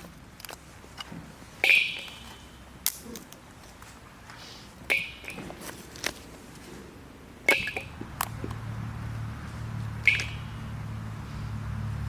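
Four sharp knocks, each with a brief metallic ring, about two and a half seconds apart, among lighter clicks. A low steady hum comes in about eight seconds in.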